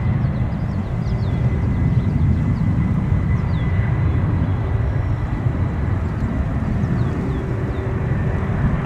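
Steady low rumble of jet airliner engines with a faint steady high whine. Short falling bird chirps repeat above it.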